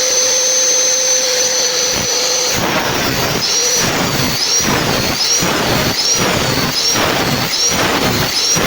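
Large powered log saw running: a steady whine at first, then, about two and a half seconds in, a louder rasping noise that pulses evenly a little faster than once a second as the blade works through the wood.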